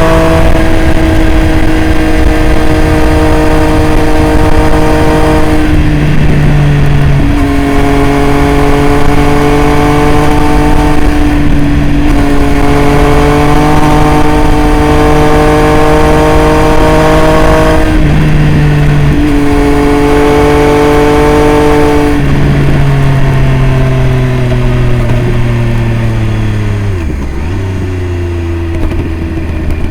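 Triumph Street Triple RS inline-three engine through a Jeskap full aftermarket exhaust, running loud at a fairly steady engine speed while riding, with small shifts in pitch every few seconds. In the last several seconds the engine note falls steadily as the bike slows, broken by two brief sharp dips in pitch near the end.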